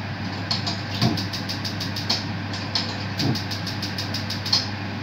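Gas stove burner's spark igniter clicking in a rapid series, about five clicks a second at its densest, as the burner knob is turned to light it, over a steady low hum.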